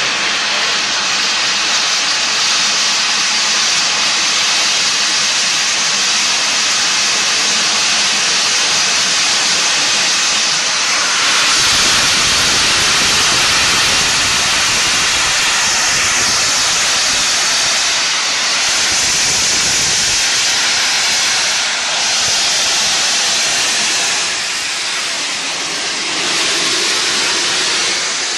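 Steam hissing hard from the cylinder drain cocks of the LNER Peppercorn A1 Pacific 60163 Tornado as it starts slowly away, a steady, loud hiss that grows heavier about twelve seconds in.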